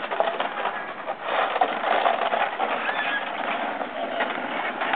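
Shovel blade scraping and rattling along a concrete driveway, a continuous rough scraping broken by sharper knocks as a dog bites and tugs at it.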